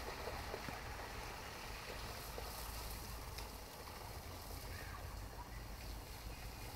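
Faint steady outdoor background noise with a low rumble and a few faint ticks.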